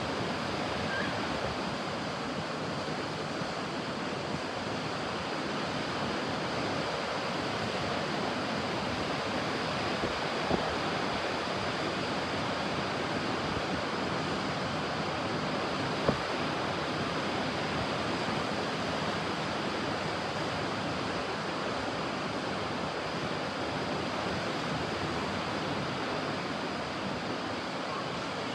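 Ocean surf washing on a beach: a continuous, even rush of waves. Two brief clicks partway through.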